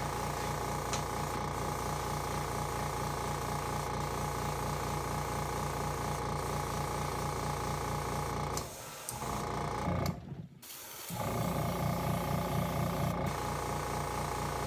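Airbrush spraying paint with a steady hiss, over the fast pulsing hum of its small air compressor running. The sound falls away twice for about a second past the middle.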